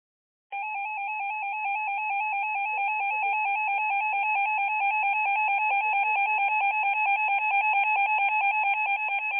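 Electronic emergency alert tone warbling rapidly between two pitches, starting about half a second in and sounding without a break for about nine seconds. It is the attention signal ahead of a broadcast tornado warning.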